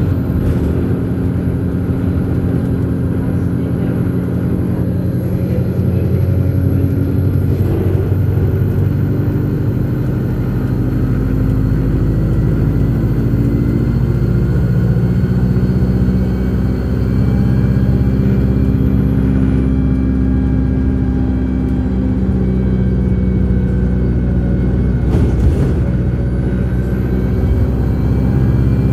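Alexander Dennis Enviro 200 single-decker bus running at road speed, heard from inside the passenger cabin: a steady engine and drivetrain drone over tyre and road noise, its pitch shifting a little partway through.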